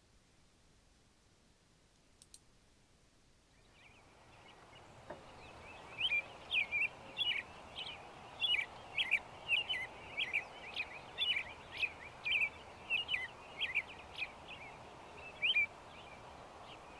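Near silence at first, then steady outdoor background noise fades in about four seconds in. From about six seconds on, an American robin gives short, sharp chirping calls, one or two a second.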